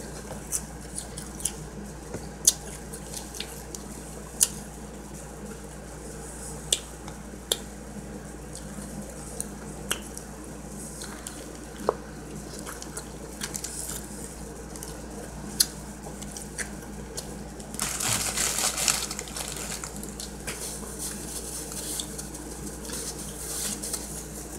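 Mouth sounds of a person eating a turkey hoagie close to the microphone: chewing and lip smacks, heard as scattered sharp clicks over a steady low hum, with a louder stretch of crackly noise about eighteen seconds in.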